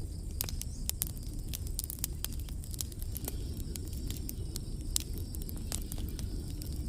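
Rain on a plastic tarp shelter: scattered drops tick sharply and irregularly over a steady low rumble of rain and wind.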